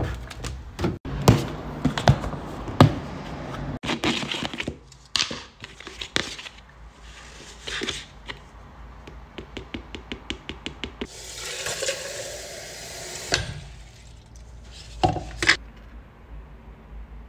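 Close-miked handling of a plastic protein powder tub and its scoop: a string of knocks and taps as the tub is handled, a quick run of clicks about seven seconds in, a rough scraping rustle lasting about two seconds a little past the middle as the scoop goes into the powder, and two sharp knocks near the end.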